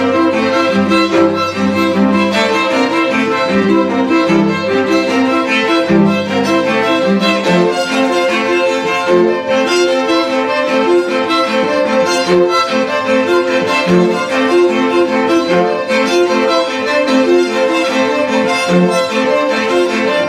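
String quartet of two violins, viola and cello playing live: one high note held steadily over a running figure of short repeated notes in the lower parts.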